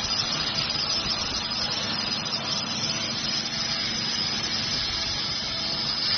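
Laser welding machine welding steel plate with filler wire: a loud, steady hiss and crackle with a faint low hum beneath.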